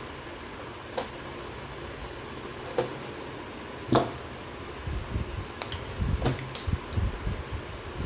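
Hands wiring an electrical control panel: a few sharp clicks, the loudest about four seconds in, then from about five seconds an uneven run of low knocks, rustles and clicks as wire and tools are handled. A steady fan-like hum runs underneath.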